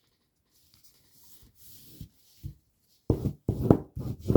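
Origami paper being folded and creased by hand: faint rubbing at first, then a quick run of louder paper rustles and rubs from about three seconds in.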